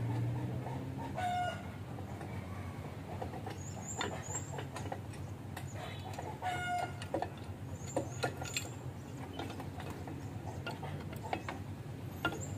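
A chicken clucks twice, about a second in and again about six seconds in, over scattered light clicks and knocks of hand tools on a minibus wheel hub and brake assembly. Small birds chirp.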